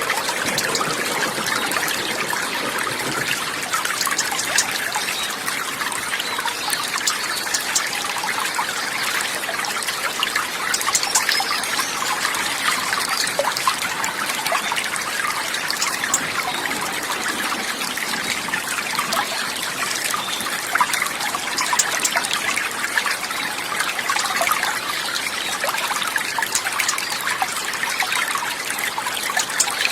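Water trickling and babbling steadily, a continuous fine splashing like a small stream.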